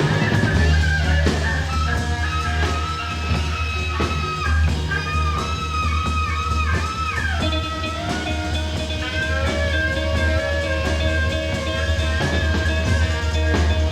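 Live rock band playing an instrumental jam: a lead line holds and slides between notes over a steady bass and drums. About five to seven seconds in it bends a note up and down several times.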